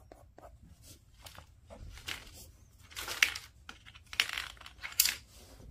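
A few short coloured-pencil strokes on paper, then four sharp clattering knocks about two, three, four and five seconds in as pencils are handled and set down, the brown pencil being swapped for a dark one.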